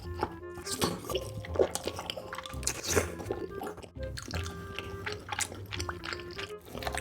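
Background music with steady held notes, over close-miked eating sounds: wet chewing, squishing and biting of food.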